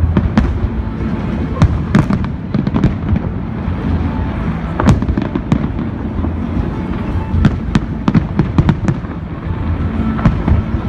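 Fireworks display: shells bursting in rapid, irregular bangs and crackles, with music playing underneath.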